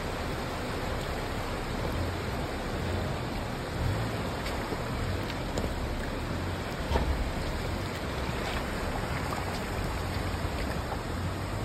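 Steady rush of a rocky creek's flowing water, with a low, uneven rumble underneath.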